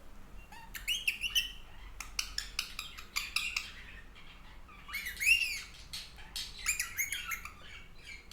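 Baby Indian ringneck parakeet chirping and squawking in short, quick calls with clicky sounds between them, the loudest call about five seconds in.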